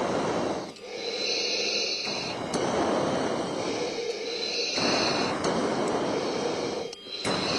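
Breathing through an F-16 oxygen mask, picked up by the cockpit intercom mic: inhales and exhales that hiss and alternate about every one to two seconds.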